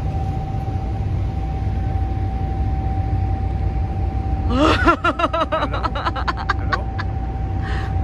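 Moving car ferry running with a steady low rumble and a constant hum. About halfway through, a person laughs briefly in short bursts.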